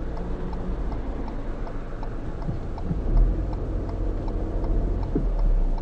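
A car's right turn indicator ticking steadily, heard from inside the cabin over the low rumble of the car idling while it waits to turn right. Passing traffic swells about three seconds in.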